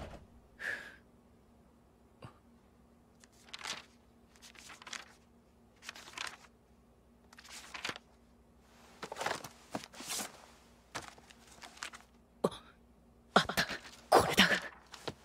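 Books and paper files being handled and leafed through in a cardboard storage box: a string of short paper rustles and page flips a second or two apart, busiest and loudest near the end, over a faint steady hum.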